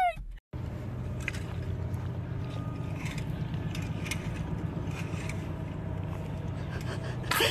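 A long-handled bristle brush scraping over a pig's hide, with a steady low rumble underneath.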